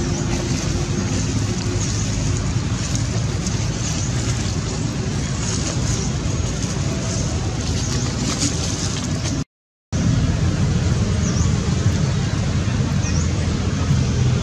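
Steady, loud rumble and hiss of outdoor background noise, cut off completely for a moment about nine and a half seconds in, with a few faint high chirps after the break.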